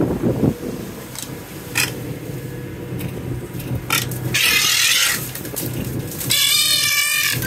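A ship's engine drones steadily underneath, with a few light clicks and a short rush of hiss a little past midway. About six seconds in comes a loud, harsh squawk with a wavering pitch, nearly a second long, from a red-footed booby.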